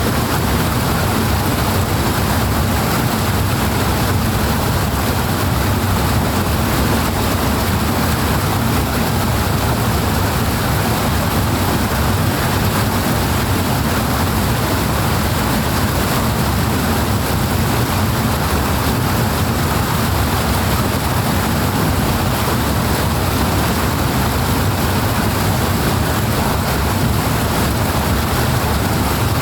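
Powerful rushing water, a loud, steady, unbroken rush with no separate splashes or changes.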